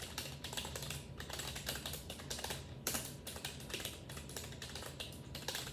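Irregular two-finger typing on a membrane computer keyboard: a quick, uneven stream of key presses, several a second.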